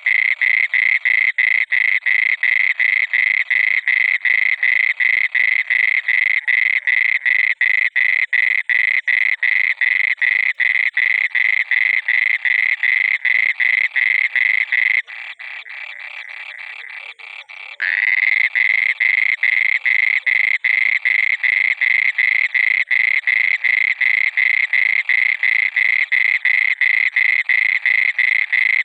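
A frog croaking continuously in a steady, fast string of pulses, two or three a second. About fifteen seconds in, it drops much quieter for around three seconds, then comes back abruptly at full strength.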